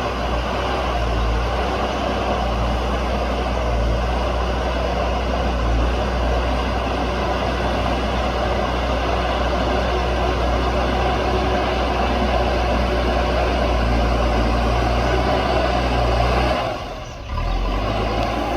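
JCB backhoe loader's diesel engine running steadily at working revs, with a brief drop in loudness near the end.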